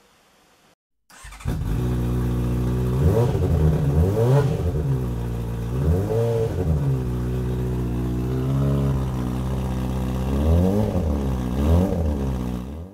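Motorcycle engine idling, with about half a dozen throttle blips that make the revs rise and fall. It starts suddenly about a second in and cuts off near the end.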